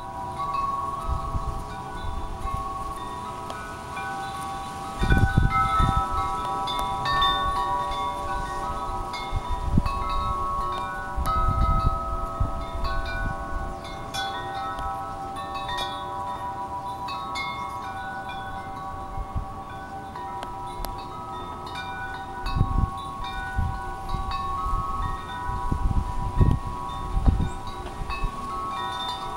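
Wind chimes ringing continually, their notes struck at random and overlapping as they ring on. A few low rumbles come and go, the loudest about five seconds in and again near the end.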